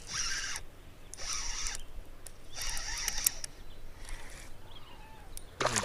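Fishing reel being cranked to bring in a hooked fish: four short bursts of winding with a whirring, ratchety sound, about one every second and a bit.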